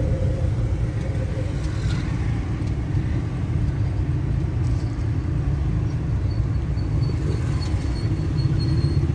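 Steady low rumble of engine and road noise inside a moving car's cabin. A faint high whine joins in about six seconds in.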